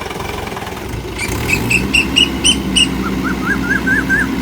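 A small engine running steadily, its pitch rising about a second in. Over it comes a quick run of short chirps, about three a second, first high and then lower.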